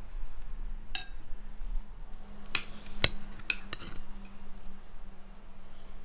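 Metal spoon clinking against a ceramic bowl: one ringing clink about a second in, then a quick run of four close together near the middle, over a faint steady hum.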